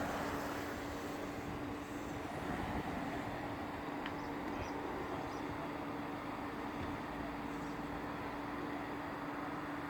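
Steady hum of a running vehicle: a constant low drone under an even rushing noise.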